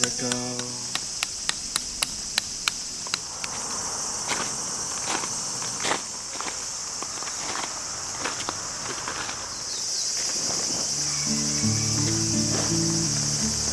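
Insects chirring steadily in a high, continuous band. Over it come a run of sharp taps about three a second in the first few seconds, then scattered knocks. Music comes in about eleven seconds in.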